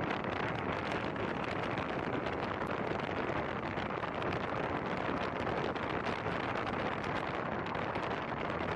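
Steady rushing wind and road noise from a moving car, with wind buffeting the microphone.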